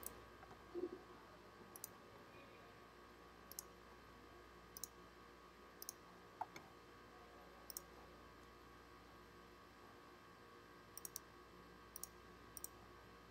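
Faint, sharp computer clicks, one every second or so and a couple in quick pairs near the end, as a spot healing brush is clicked on blemishes in Photoshop; otherwise near silence with faint room tone.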